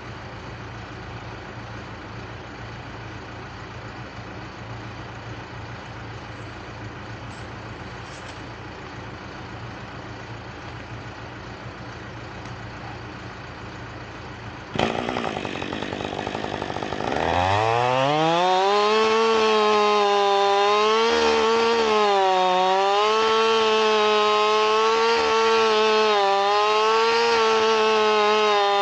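A low, steady engine hum, then about halfway through a Husqvarna 550XP two-stroke chainsaw comes in suddenly and revs up to full throttle. It runs at high revs, its pitch dipping and recovering as it cuts into wood.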